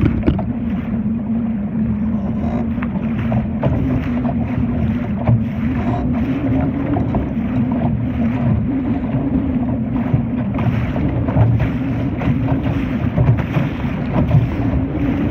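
Wind buffeting the microphone and water splashing irregularly against a Laser sailing dinghy's hull while under sail, with a steady low hum throughout.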